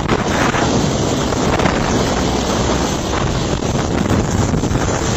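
Wind buffeting the microphone: a loud, steady rush of noise with a deep rumble.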